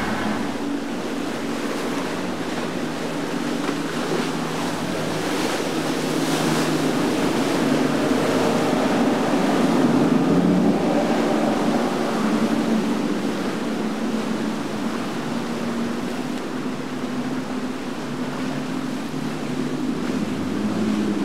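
Motorboat engine running, a steady low hum, over churning and splashing water from the boat's wake. It grows louder toward the middle and eases off again, as a boat passing by.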